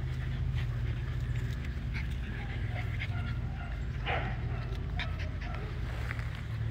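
Pembroke Welsh corgi puppies playing and making short, high little cries, the loudest about four seconds in, over a steady low rumble.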